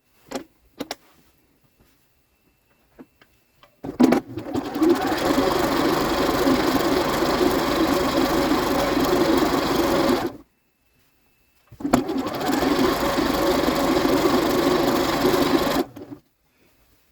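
Domestic sewing machine stitching fabric strips together in two steady runs, the first about six seconds, then a brief stop and a second run of about four seconds. A few light clicks come before the first run.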